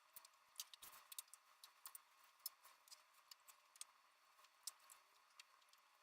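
Faint, irregular small clicks and taps of Montessori number cards being handled and laid down on a table.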